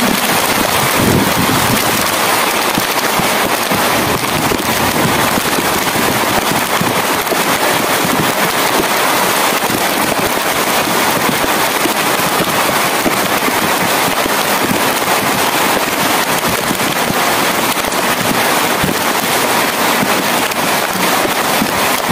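Heavy rain falling steadily, a dense crackle of drops hitting surfaces.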